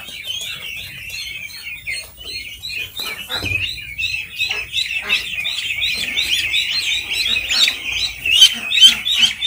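A flock of 16-day-old ducklings peeping, with many short, high calls overlapping. The calling grows louder and denser about four seconds in.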